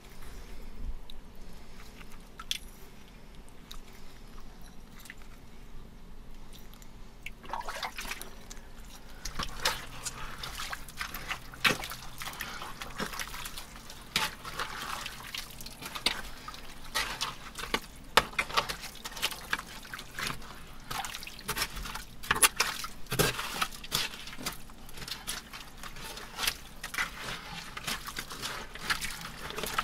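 Water trickling and dripping in a wet privy dig pit. From about seven seconds in, it is joined by many sharp clicks and scrapes of digging and handling in the wet fill.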